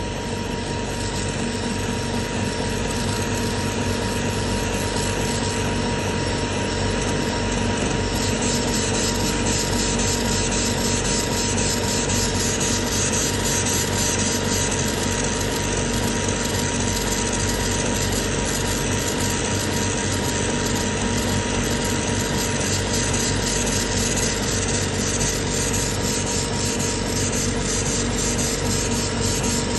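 CO2 laser engraving machine engraving glass: the laser head moving rapidly back and forth with a steady mechanical noise and a fast, regular pulsing, over a steady hum.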